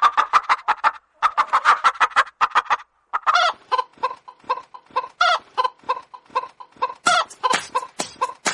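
A flock of layer hens clucking, many short calls overlapping. It breaks off briefly about a second in and again at three seconds, then settles into a regular run of clucks, about three a second.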